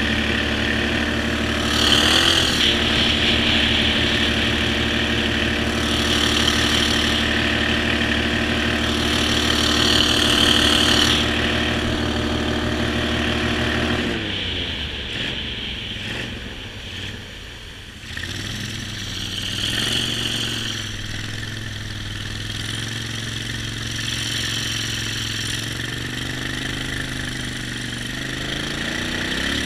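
Jon boat's outboard motor running steadily at speed, then throttled back about halfway through and running lower, with the revs climbing again near the end. A few short bursts of hiss come over the engine.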